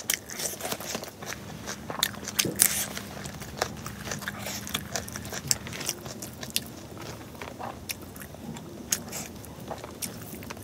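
Close-up eating sounds of rice and pork curry eaten by hand: wet chewing and lip smacks, with many short sharp mouth clicks, and fingers gathering and pressing rice on a banana leaf.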